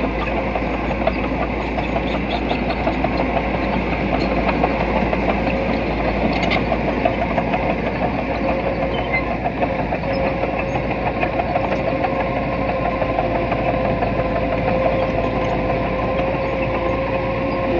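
Diesel engine of earthmoving equipment running steadily, with a rapid mechanical clatter and a steady whine that grows stronger about halfway through.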